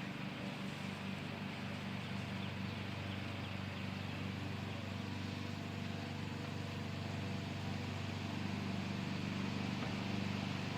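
ACA Banshee electromechanical siren's chopper still spinning, coasting down after the siren has sounded: a steady low hum.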